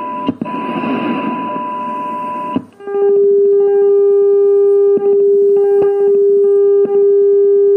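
AM receiver audio from an rtl-sdr dongle running Linrad, demodulating signal-generator test tones: for the first two and a half seconds a hissy, rough noise with a higher whistle-like tone in it, then a brief dropout and a clean, steady low tone. The steady tone is broken by several sharp clicks as the stronger generator's output level is stepped up.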